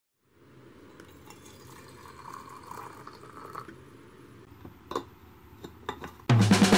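Boiling water poured into a stainless-steel Thermos food jar: a faint, even trickle lasting about three seconds. A few knocks and clinks follow as the lid is fitted. Music with a beat comes in just before the end.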